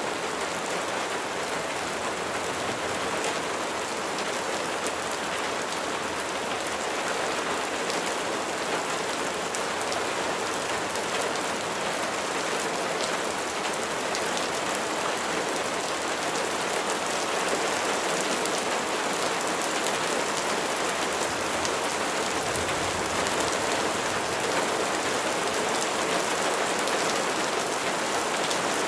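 Steady rain falling: a dense, even hiss of water on a surface with scattered ticks of single drops.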